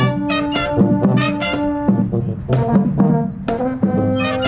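Marching band playing: trumpets and a sousaphone sounding held brass notes that move in steps, with a few sharp drum hits.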